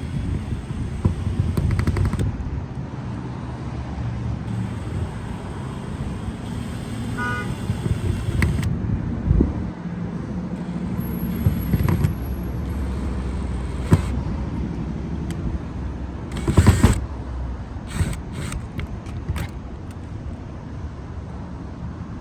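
Hand tools and parts knocking and clattering against a van's body during installation work, over a steady low rumble. The loudest knocks come in a cluster about 17 seconds in.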